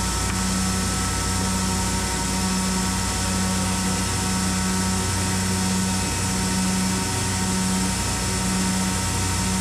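Weinig molder planer running steadily, its cutter heads spinning with a constant high whine over a low hum that pulses about once a second.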